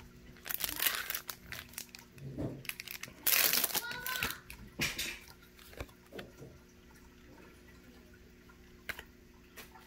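Foil Pokémon booster pack wrapper being torn open and crinkled by hand, in two loud bursts of crinkling about half a second in and just past three seconds in, followed by a few lighter rustles and ticks as the cards are handled.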